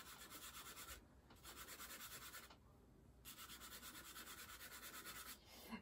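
Faint scratchy rubbing of a soft pastel stick worked back and forth on drawing paper, in quick even strokes about six a second, in three spells with two short pauses.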